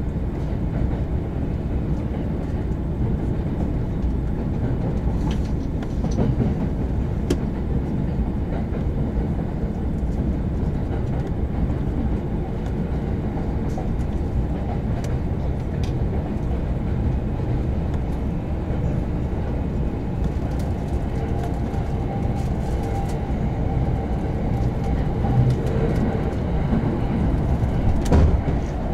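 Commuter train running, heard from inside a passenger car: a steady low rumble of wheels on rail with scattered sharp clicks. A faint steady tone joins in the second half, and a louder clack comes just before the end.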